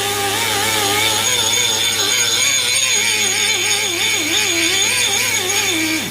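Pneumatic die grinder spinning free at high speed. Its pitch wavers up and down, dips sharply about six seconds in and then climbs back, over a steady low hum.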